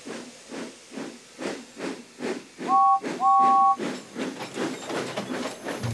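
Steam locomotive chuffing steadily as it gets under way, about three or four puffs a second. Near the middle the steam whistle sounds twice on a two-note chord, a short toot then a longer one.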